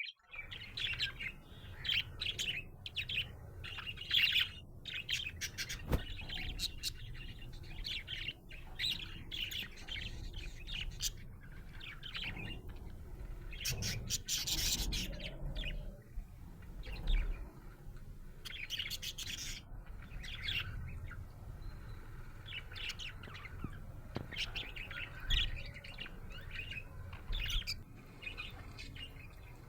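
Budgerigar chirping and warbling in a continuous stream of rapid, short, high chirps, with a couple of louder, scratchier bursts around the middle.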